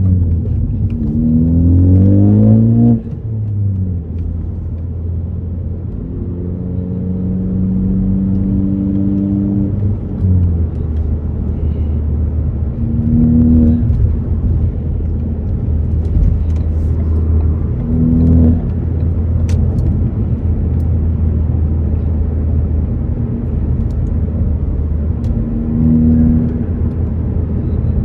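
2018 Ford Focus ST's turbocharged 2.0-litre four-cylinder through an AWE axle-back exhaust, pulling hard and rising in pitch until it drops off about three seconds in. It then climbs more gently for a few seconds, falls to a steady low drone at cruise, and rises briefly three times under short bursts of throttle.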